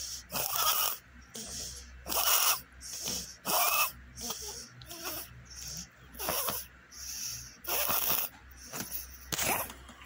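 Small dog wheezing as it breathes: a rasping, hissing sound on each breath, repeating steadily more than once a second.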